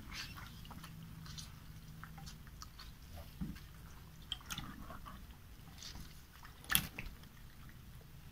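Wet squelching and rubbing as a lemon half is scrubbed over raw catfish skin, with scattered small clicks and one sharper click a little before the end.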